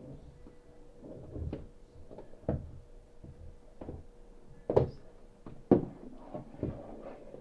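Impact noise through the ceiling from the flat above: irregular thuds and knocks, with two sharper bangs about five and six seconds in the loudest. The resident puts the noise down to children running around upstairs.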